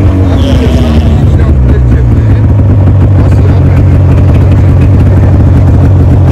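Ski-Doo snowmobile engine running steadily under way, a loud low drone heard from the seat.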